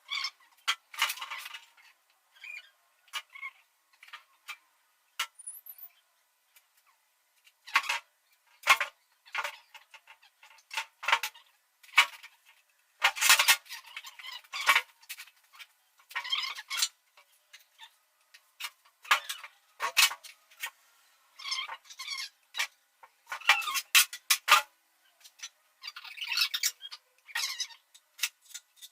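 Irregular clinks, taps and short scraping sounds of tools and metal engine parts being handled, some single sharp ticks and some half-second bursts, with quiet gaps between them.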